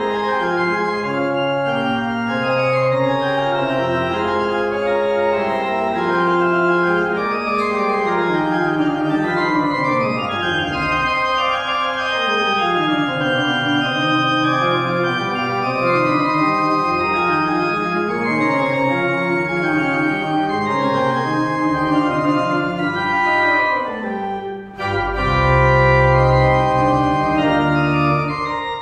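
Church pipe organ playing a piece in several parts, with sustained chords over a moving bass line. About 25 seconds in it breaks off for a moment, then comes back with a loud, deep pedal chord.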